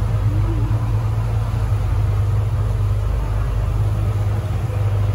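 Fishing boat's engine droning steadily under way, with rushing wind and water from the wake.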